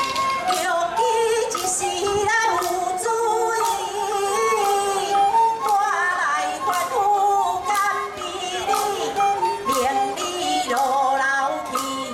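Taiwanese opera (gezaixi) band music played live: a wavering melody over a steady percussion beat.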